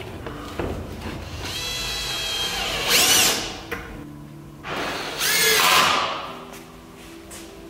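Cordless drill-driver running in two bursts as it drives in the screws holding the undershield. Its motor whine rises and falls in pitch each time the screw runs in and seats.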